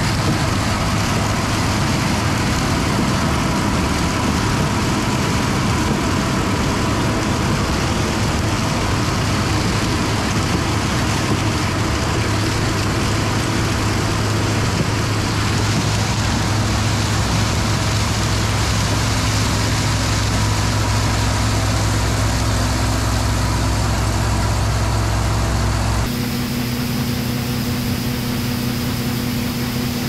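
John Deere combine running steadily as its corn head feeds dry corn stalks into the machine. About 26 seconds in, the sound changes abruptly to a slightly quieter drone with a steady hum, as shelled corn pours from the unloading auger into a grain cart.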